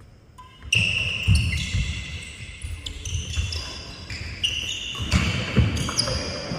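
Badminton doubles rally: racket strokes on the shuttlecock, shoes squeaking on the wooden court floor and heavy footfalls, starting about a second in and running on through a diving retrieve near the end.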